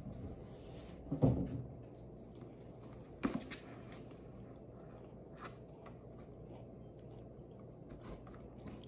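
Cats playing on and around a cardboard box: a few short soft thumps and scrapes of cardboard, the loudest about a second in and smaller ones around three and five seconds, over a steady low room hum.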